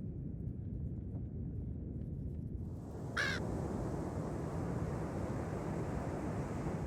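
Common raven giving a single short call about three seconds in, over a steady rumble of wind and surf.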